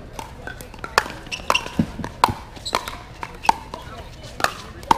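Pickleball paddles striking a hard plastic ball: a rapid, irregular string of sharp pops, about two a second, each with a short hollow ring.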